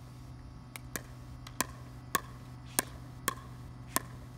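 Pickleball paddles volleying a plastic pickleball back and forth at the net: a steady run of sharp pops, about two a second.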